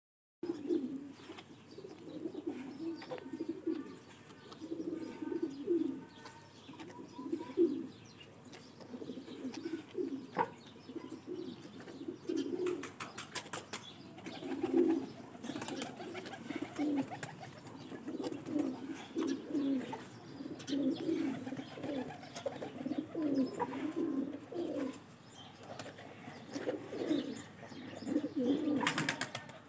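A flock of domestic pigeons cooing steadily, many low throaty coos overlapping without a break. A couple of short bursts of sharp clicks come about halfway through and again near the end.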